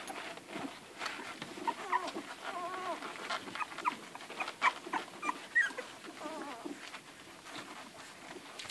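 Nursing Irish red and white setter puppies whimpering and squeaking in short, wavering cries, among many small clicks.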